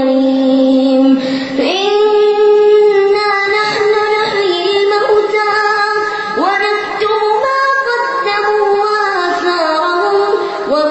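A boy reciting the Quran in a melodic chanted style, one voice holding long drawn-out notes with ornamented turns. The pitch slides up into a new phrase about two seconds in and again past the middle.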